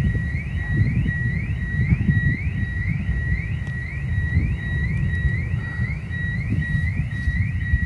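A high, steady tone broken by a quick rising chirp about three times a second, repeating evenly, over a loud, gusting low rumble typical of wind on the microphone.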